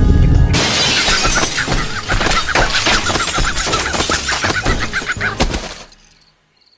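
Cartoon sound effect of something shattering, with a long run of breaking and clattering pieces that fades out to near silence near the end.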